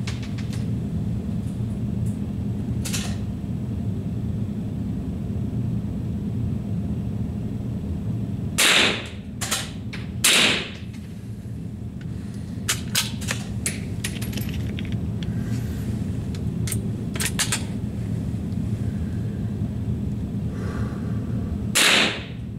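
Rifle shots: three short loud reports, two about two seconds apart midway and one near the end, with scattered fainter clicks between them over a steady low hum.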